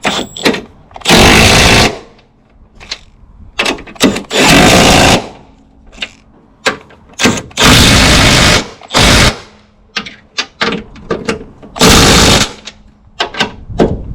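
Impact wrench run in about five short bursts, tightening the strut mount's top bolts, with small clicks and knocks between the bursts.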